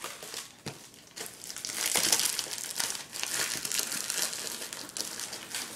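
Cellophane shrink-wrap on a DVD box set crinkling and crackling as it is picked at and peeled off by hand, a stubborn wrap that is hard to get off. Quieter at first, louder from about two seconds in.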